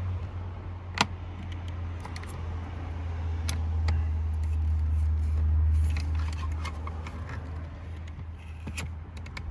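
Wire coat hanger being worked behind a jammed glove box to free a broken latch, giving scattered clicks and taps of metal on plastic, over a steady low hum.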